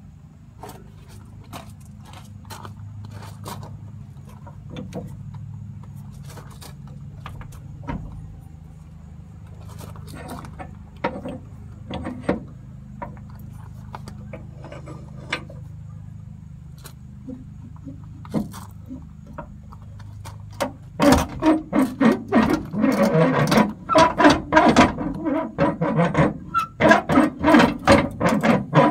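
Spare-tire carrier winch on an M35A2 truck cranked by hand with a long extension bar to lower the spare tire: light scattered clicks and knocks over a steady low hum at first, then, about two-thirds of the way in, a loud, fast run of ratcheting metallic clicks as the winch turns and pays out its cable.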